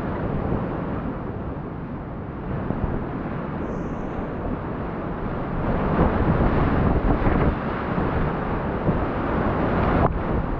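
Whitewater rapids rushing around a kayak, with paddle strokes and splashes hitting the boat and microphone; the rush gets louder about six seconds in, with sharp splashes around then and again near the end.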